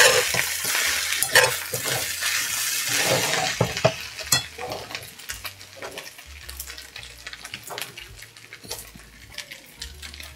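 Bibimbap rice sizzling in a hot frying pan while a metal spoon stirs and scrapes the scorched rice crust against the pan, with many short clicks and scrapes. The sizzle fades after about four seconds, leaving mostly the scraping.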